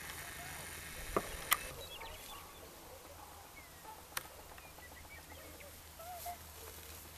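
Open-meadow ambience: a steady low rumble and hiss, broken by a few sharp clicks, two close together about a second in and one around four seconds in, with faint short chirps scattered through.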